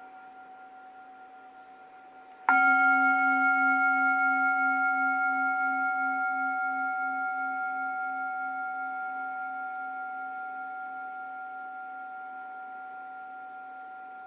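Tibetan singing bowl struck once about two and a half seconds in, while the previous ring is still fading. It rings on with several steady clear tones over a low pulsing hum, slowly dying away.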